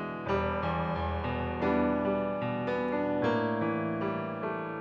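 Digital keyboard with a piano sound playing a slow jazz ballad solo, chords struck about once a second and left to ring.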